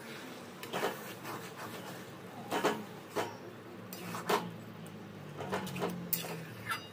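Metal spatula scraping and knocking against a metal kadai as thick rice and fish-head curry is stirred, in irregular strokes about once or twice a second.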